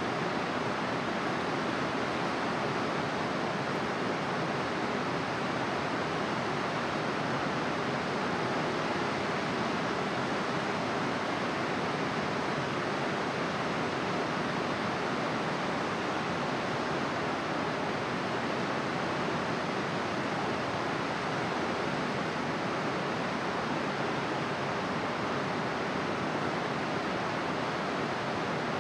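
Steady, even rushing noise with no distinct sounds in it, at a constant level.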